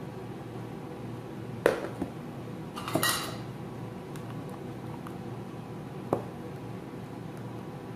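A metal ladle clinking against a stainless steel mixing bowl and small aluminium puto molds as batter is scooped and poured: a few sharp, separate clinks, the loudest cluster about three seconds in.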